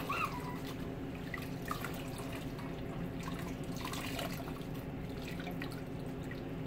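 Water trickling and dripping into a plastic wash basin as a newborn's head is rinsed, a soft, steady splashing with scattered drips.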